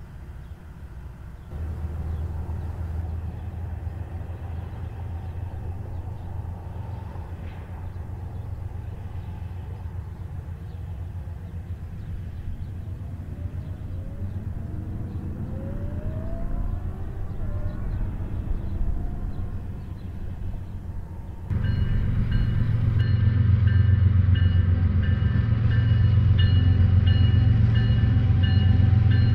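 Diesel-electric freight locomotives running with a steady low engine drone, with a sound rising in pitch in the middle. About 21 seconds in a much louder, closer rumble takes over as a consist led by a Norfolk Southern EMD SD70M and Union Pacific GE AC44CW units passes, with steady high whining tones over the rumble.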